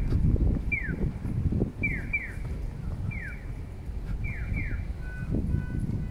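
Audible pedestrian crossing signal giving electronic chick-like chirps: short falling chirps alternating single and double, about once a second, over a low rumble. Near the end the chirps give way to short steady beeps.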